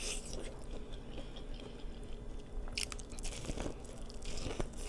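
A person biting into and chewing corn on the cob close to the microphone: crisp kernel crunches and wet chewing, with sharper bites near the start, about three seconds in, and near the end.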